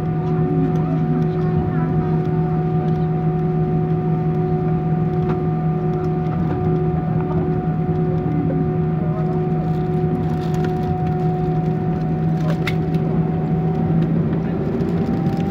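Airbus A320 cabin noise while taxiing after landing: a steady engine hum with several clear tones. Its pitch rises slightly near the end.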